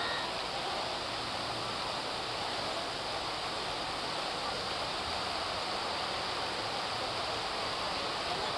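Arcing water jets of a large pool fountain falling and splashing into the pool, a steady, even rushing splash.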